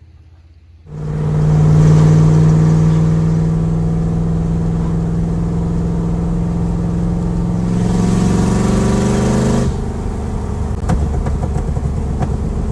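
A Fox-body Mustang's 302 V8 pulling steadily while driving, its pitch rising slowly over several seconds. It breaks off suddenly near the end into a rougher, noisier rumble.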